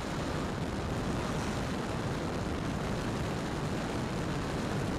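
Steady rush of air and propeller noise heard from a camera mounted on an E-flite Timber X, an electric RC plane, in flight.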